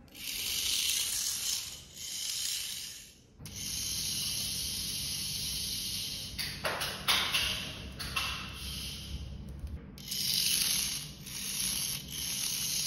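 Small electric motor and plastic gearbox of a Shell Motorsport Nissan Formula E toy RC car whirring as it drives across a tile floor, with a few short crackles partway through. The sound comes in three stretches that break off suddenly about a third of the way in and again near the end.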